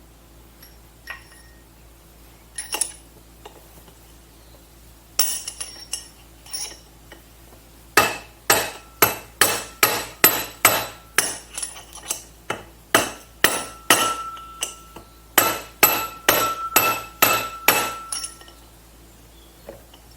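Hammer striking a punch on a jet ski pump housing, trying to drive out a seized bearing: a few scattered taps, then a long run of hard metallic blows, about two a second, with a ringing tone and a short pause midway.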